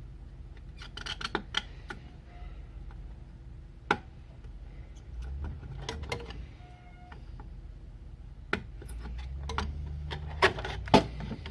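Scattered small clicks and taps of metal hand tools on a TV power-supply circuit board while diodes are desoldered, with the sharpest clicks near the end.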